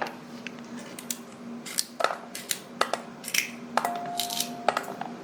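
Green beans being sliced with a knife: a series of crisp, irregular cuts and knocks, about a dozen in a few seconds.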